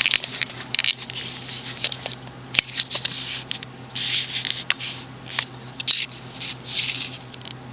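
Irregular sharp clicks and short scratchy rustles over a steady low hum, while the Casablanca Capistrano ceiling fan's spinner motor is switched into reverse.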